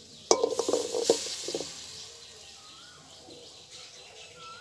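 Lumps of jaggery dropped one after another into a black iron kadai holding a little water: several quick knocks in the first second and a half, each making the wok ring briefly. A few bird chirps follow.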